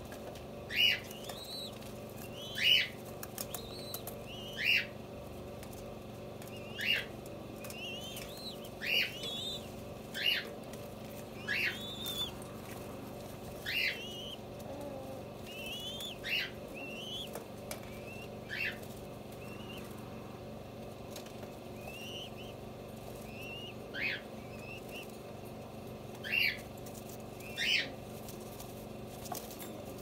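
White doves making a series of short, high squeaky peeps, about one every second or two, with a gap in the second half, over a steady low hum.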